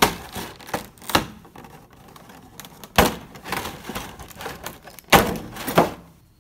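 Clear plastic blister tray and packaging being handled and pulled out of a box: sharp plastic clacks and knocks with crinkling between them. The loudest knocks come about three and five seconds in.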